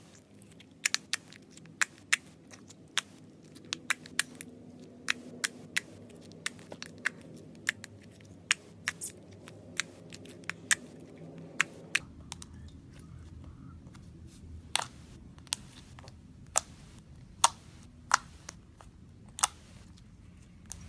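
Slime being squeezed and pressed by hand, giving off irregular sharp crackles and pops as air pockets burst.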